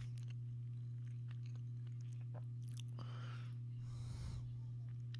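Close-up chewing of a sandwich: soft, irregular mouth clicks and smacks, with a breathy rush about three seconds in, over a steady low hum.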